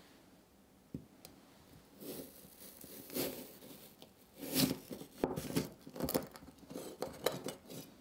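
Kitchen knife cutting down through a caramel-coated apple: crisp crunching and crackling of the caramel coating and the apple flesh, in uneven bursts from about two seconds in, loudest in the second half.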